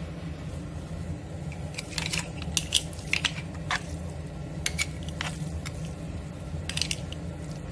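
Metal tongs clicking and scraping against a non-stick frying pan and mussel shells while tossing fettuccine in cream sauce. The clicks are scattered and irregular, over a low steady hum.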